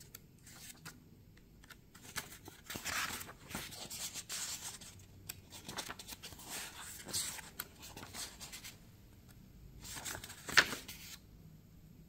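Paper pages of a stapled user manual being handled and turned, rustling and crackling in uneven bursts, with a sharp, louder page flick near the end.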